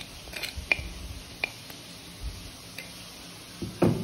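A metal spoon scraping out a pot of soft boiled lentils and tapping against its rim, giving a few sharp clicks. A louder, duller knock comes near the end as the pot is set down.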